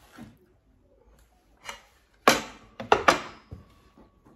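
Eating salad from a plastic bowl close to the microphone: about four sharp clatters and crunches from the fork and bowl, the loudest a little past the middle.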